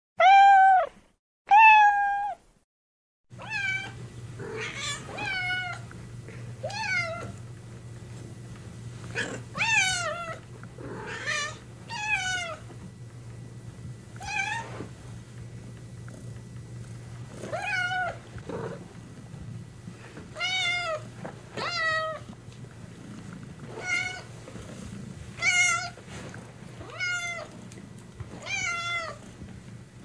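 Domestic cats meowing: two loud meows in near silence at the start, then from about three seconds in a run of repeated meows, one every second or two, over a steady low hum.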